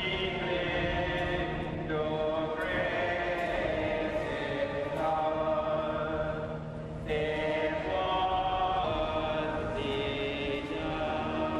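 Choir singing a slow, chant-like piece in long held notes, the chord changing every second or two.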